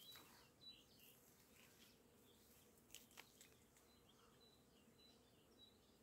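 Faint birdsong: short high chirps repeating every half second or so, with two sharp clicks about three seconds in, over a low steady hiss.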